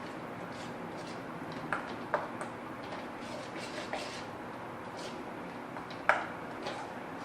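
A few light clicks and knocks against a bowl as besan dough is mixed with ghee, the loudest a sharp knock about six seconds in, over a steady background hiss.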